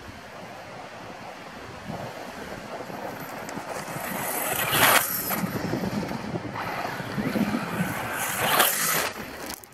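Electric RC short-course truck (HobbyKing Rattler with a Tacon 3660 3500kv brushless motor on 2S) driving over loose sand and gravel, its tyres hissing as they throw grit. It grows louder from about two seconds in, with two loud passes about five and nine seconds in.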